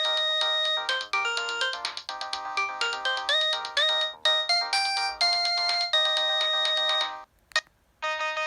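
A preloaded ringtone on a Samsung SCH-N356 mobile phone plays a bright, repeating melody of quick notes. It stops about seven seconds in, and after a brief pause a different ringtone starts near the end.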